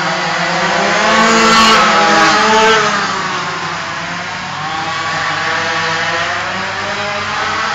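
Several small kart engines running on an indoor track, their pitch rising and falling as they lap. One passes close from about one to three seconds in, and that is the loudest moment.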